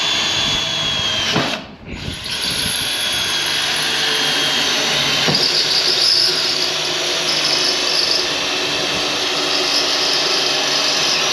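Cordless drill boring a hole through a metal roof-rack rail, running steadily with a short stop about two seconds in. From about halfway on, a high screech from the bit cutting the metal joins the motor sound.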